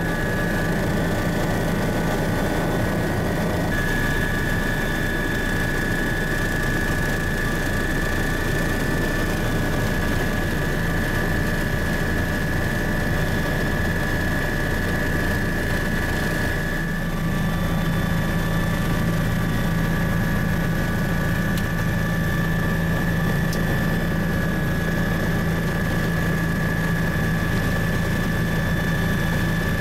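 Helicopter cabin noise in flight: a steady drone of the engine and rotors with a high, constant whine on top. The level dips briefly about halfway through, then carries on as before.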